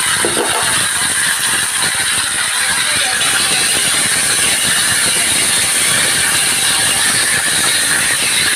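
Sliced onions and spice paste sizzling in hot oil in a wok as they are stirred: a steady, loud hiss with scraping of the spatula against the pan.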